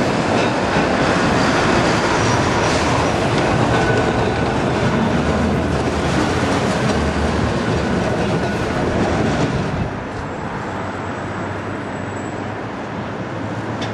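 Blackpool double-deck electric tram running past on its street rails: a steady rumble and clatter from its wheels, with a brief faint squeal. About ten seconds in the sound drops a little as the tram moves away.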